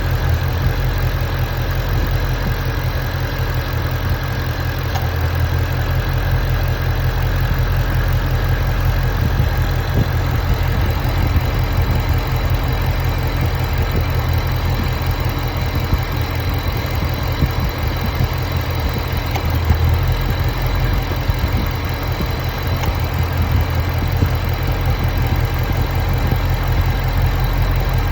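Ford Mustang Shelby GT350's V8 idling steadily, the noises it makes at idle being the point of the recording.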